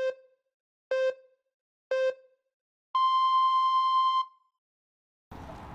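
Electronic countdown beeps: three short low beeps a second apart, then one longer beep an octave higher. Faint room sound starts near the end.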